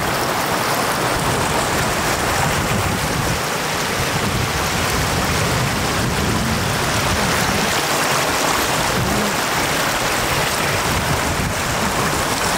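Floodwater rushing steadily over a road in a shallow, fast sheet.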